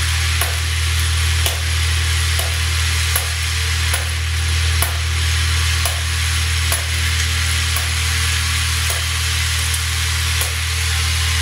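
Vibratory bowl feeder and linear feeder running: a steady low hum from the vibrating drives under a constant rattle of small parts shaking along the bowl, with sharp clicks about once a second.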